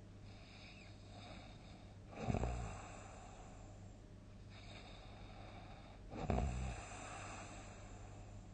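A sleeping person snoring loudly: two big rasping snores about four seconds apart, with softer breathing between them.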